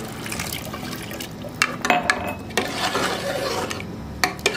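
Steel ladle stirring thin, freshly watered mutton curry in a pressure-cooker pot: liquid sloshing, with several sharp clinks of the ladle against the pot.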